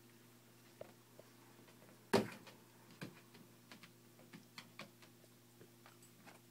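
A dog's claws ticking now and then on a tile floor as she noses and paws at an orange, with one loud thump about two seconds in.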